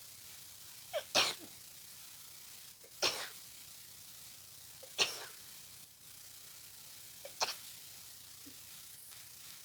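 A person with a congested head cold sneezing four times in a row, about two seconds apart. Each sneeze is sharp and short, most with a quick catch of breath just before.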